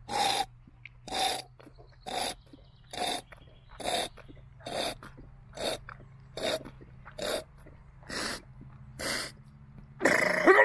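A man snorting liquid up his nose from a glass jar: short, sharp nasal snorts about once a second, a dozen or so in a row. Near the end comes a louder, rougher burst with a throaty tone in it.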